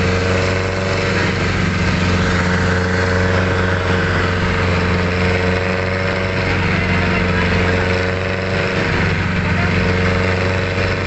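Engine of a moving road vehicle running steadily, heard from inside the vehicle, its hum holding an even pitch over a constant haze of road noise.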